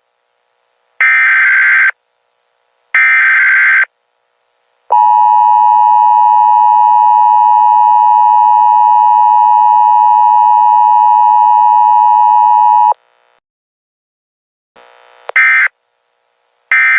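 Emergency Alert System broadcast tones: the end of one burst of screechy data-header tones, then two more bursts about a second long, separated by short silences. They are followed by the two-tone attention signal, held steadily for about eight seconds before it cuts off. Near the end, shorter bursts of data tone start.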